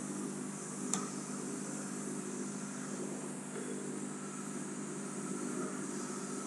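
Steady low electrical hum with a layer of hiss, and a single short click about a second in.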